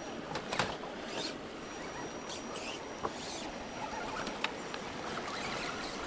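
Radio-controlled Axial Wraith rock crawler climbing over creek-bed boulders: its electric motor and gears give a faint high whine that comes and goes, with a few sharp clicks and knocks of tyres and chassis on stone, over a steady hiss.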